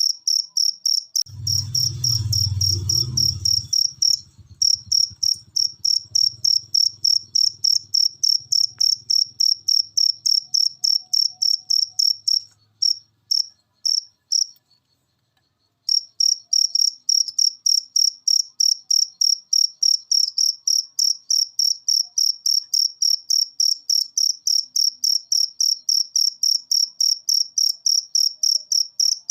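Cricket chirping in a steady train of about four short, high chirps a second. It falters and stops for about a second roughly halfway through, then resumes. A low rumble comes in about a second in and fades away over the next several seconds.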